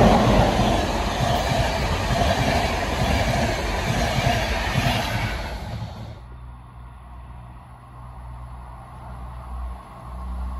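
A train passing close by at speed: loud wheel and rail noise with some clickety-clack. About six seconds in it cuts off suddenly, leaving a low steady rumble.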